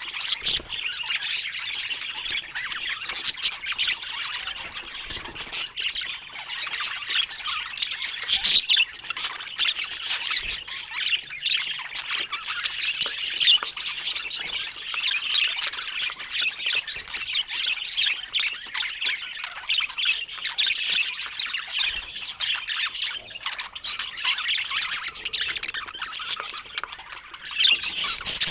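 Budgerigars chattering and warbling without pause: a dense stream of rapid squawks, chirps and clicks.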